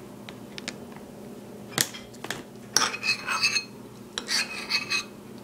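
Metal spoon scraping and clinking against a ceramic bowl as the thick ricotta filling is scooped out. A sharp clink comes about two seconds in, then two spells of scraping with ringing clinks.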